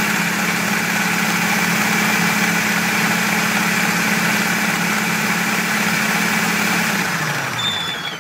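Countertop blender running steadily as it purées cucumber and lime. Near the end it is switched off and its motor whine falls away as it spins down.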